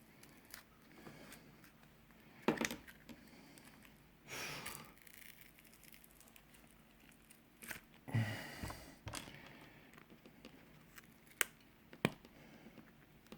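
Rear-glass adhesive on a Samsung Galaxy S9 Plus being pulled apart and plastic opening picks working along the edge: a few sharp clicks and short peeling, scraping noises at irregular intervals.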